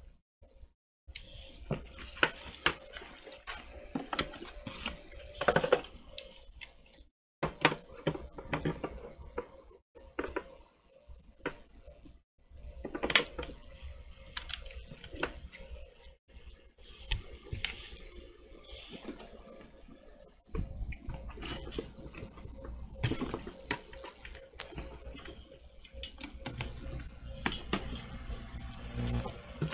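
Irregular rustling, clicks and light taps of packaging and accessories being handled.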